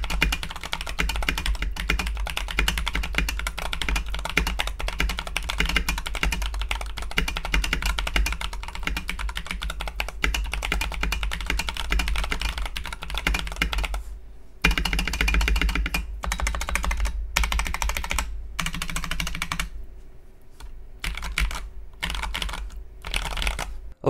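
Typing on a Keychron V3 mechanical keyboard with Tecsee Sapphire tactile switches, its case filled with Poron foam and given a one-layer tape mod. A dense, continuous run of key clacks breaks off briefly a little past halfway, then comes back in stop-start bursts toward the end.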